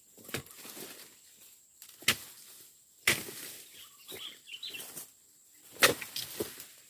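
A dodos, the chisel-bladed oil palm harvesting tool, chopping: four sharp strikes a second or so apart, the loudest near the end, with rustling between them.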